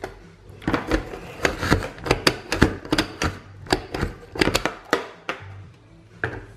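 Plastic plunger mini chopper pressed down over and over, clacking about three times a second as its blades chop onion. The pressing stops about five seconds in.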